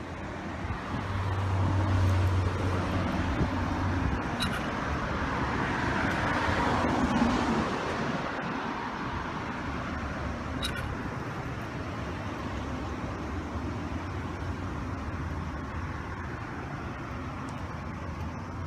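Road traffic noise: a vehicle engine hums low for the first few seconds, then a passing car swells to its loudest about seven seconds in and fades into steady street noise. Two faint ticks are heard.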